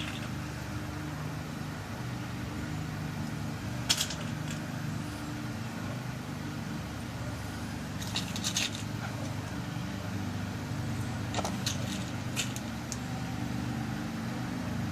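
Light metallic clicks and taps as small bottom pins are dropped into a pin-tumbler lock cylinder to rekey it to a new key: a single click about 4 s in, a quick cluster around 8 s, and a few more near the end. A steady low hum runs underneath.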